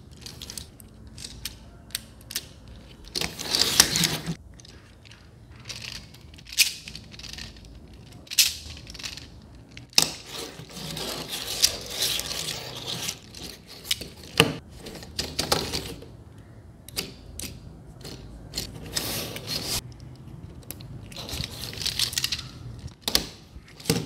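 Hands handling a segmented plastic remote-control toy snake: irregular clicks and scrapes of the plastic body segments, with several longer stretches of rustling.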